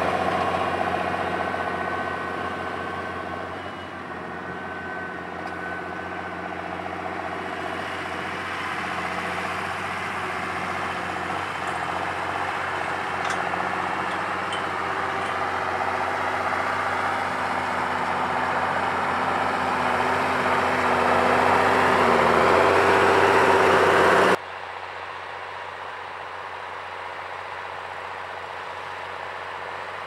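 Farm tractor's diesel engine working steadily under load while pulling a plough, growing louder as it comes closer, its pitch dipping as it passes about 22 seconds in. The sound then cuts abruptly to a quieter, steady engine hum.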